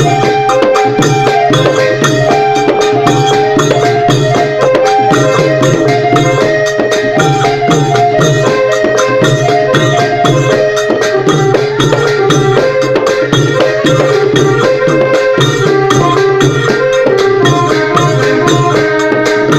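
Thai klong yao long-drum ensemble playing: long drums beat a dense, steady rhythm while a melody steps between notes over one long held note.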